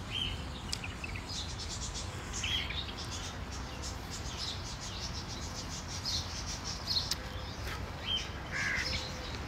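Small birds chirping: short, scattered chirps every second or two over a low, steady background rumble.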